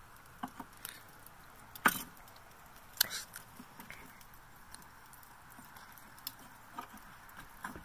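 Scattered metallic clinks and knocks as a metal plate setter frame is set into a ceramic kamado grill over burning lump charcoal, the two loudest about two and three seconds in.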